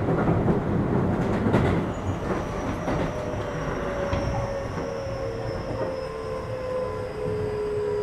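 Keio 8000 series electric train running, heard on board. At first there is a rail rumble with a few clacks. From about two seconds in, the Hitachi SiC inverter and traction motors whine in several tones that fall slowly in pitch as the train slows.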